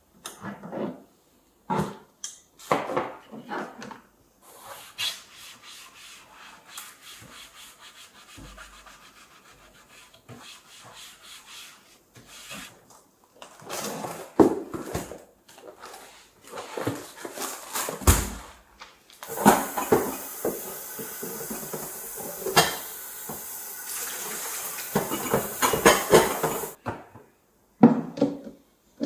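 Household items being moved about and a cabinet being wiped out: irregular knocks, clatters and rubbing. In the second half a steady hiss runs for about seven seconds, with more knocks over it.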